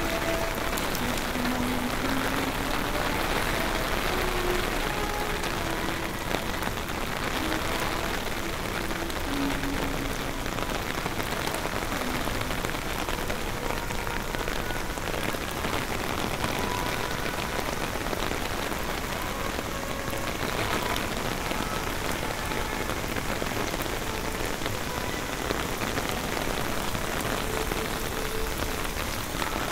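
Steady rain falling from the beginning of Hurricane Milton.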